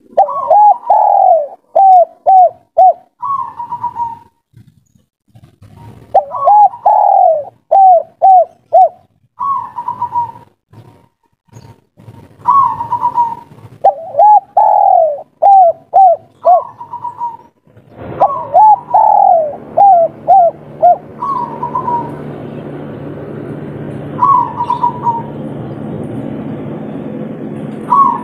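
Spotted dove cooing its 'kuk 3' song over and over: each phrase is a drawn-out coo followed by three short clipped coos, with single coos between phrases. About two-thirds of the way through, a steady background hum starts up under the calls.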